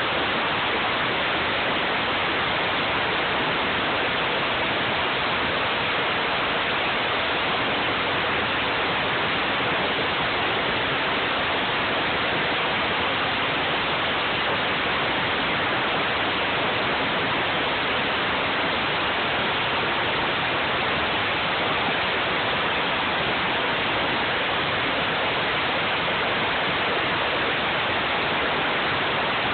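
Pressure washer jet spraying hard against a rough surface: a steady, unbroken hiss of water.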